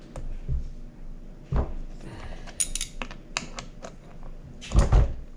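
Small steel bolts and hand tools clinking as they are handled and set down, with scattered metallic ticks and a few dull thumps, the loudest near the end.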